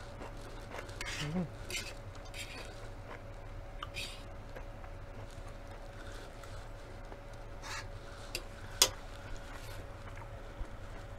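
Fork clinking and scraping on a metal sheet pan with soft chewing and mouth sounds, and one sharp clink near the end as the fork is laid down on the pan.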